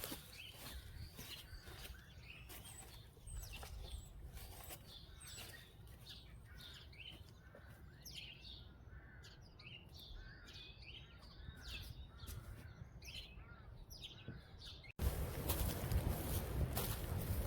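Small birds chirping and singing, many short calls over a quiet background. About fifteen seconds in it cuts abruptly to louder, steady rumbling noise.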